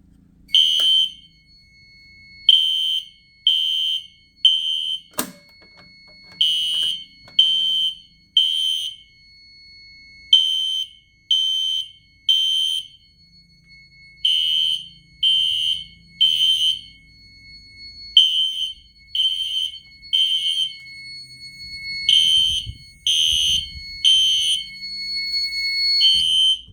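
Fire alarm horns sounding the temporal code-3 evacuation signal, the sign that the system is in alarm: three short, piercing blasts about a second apart, then a pause, repeating. A thin steady high tone runs underneath, and there is a sharp click about five seconds in.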